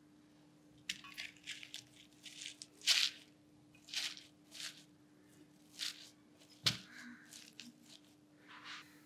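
Fresh coriander leaves and stems rustling and crunching as a hand stuffs them down into a stainless-steel mixer-grinder jar, in a run of short crackly rustles with one sharper knock against the jar about two-thirds of the way through.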